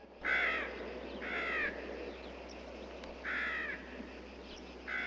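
Crow cawing four times at uneven intervals, each caw short and harsh, over a faint steady outdoor background hiss.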